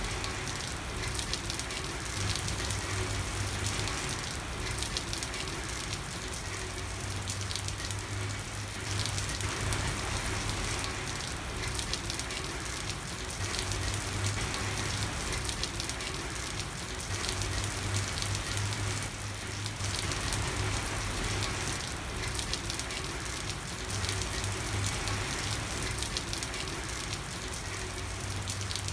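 Steady rain falling on a street, a dense patter of drops that swells and eases every few seconds.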